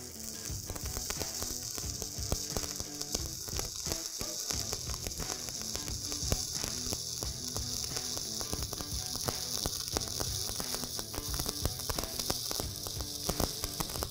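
Stick welding arc crackling and sizzling steadily with many sharp irregular pops as a vertical-up bead is run, the machine's heat turned down for vertical.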